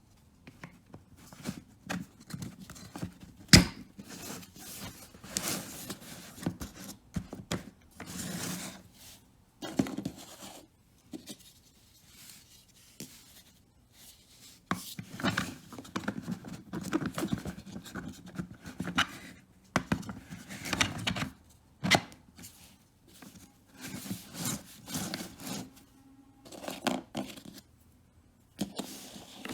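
Hands handling and fitting kit parts together on a work surface: irregular rubbing and scraping in bursts, with a few sharp clicks, the loudest about three and a half seconds in and another about 22 seconds in.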